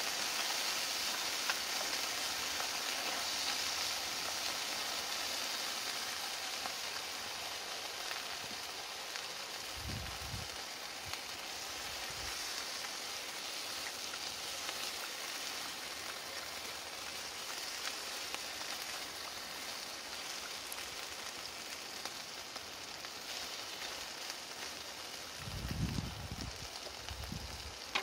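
Snow peas with garlic and ginger sizzling in hot oil in a frying pan on a camp stove, stirred with a spatula; the sizzle slowly eases. Dull low thumps about ten seconds in and again near the end.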